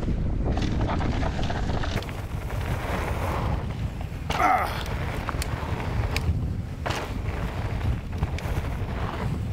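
Wind buffeting the microphone on a mountain bike riding down a trail, with sharp clicks and knocks from the bike over rough ground and a brief high-pitched squeal about four and a half seconds in.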